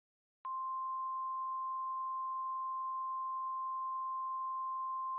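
Emergency alert attention tone: a single steady high-pitched beep that starts abruptly about half a second in and holds unchanged, sounding before an alert message is read.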